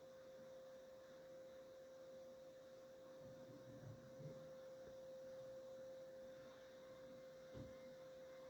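Small Peltier dehumidifier's fan running, a faint steady hum on a single tone, with a few soft low thumps about halfway through and again near the end.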